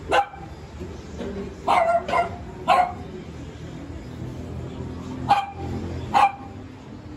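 A dog barking: six short, sharp barks, one at the start, three close together around two seconds in, and two more near the end, over a steady low background hum.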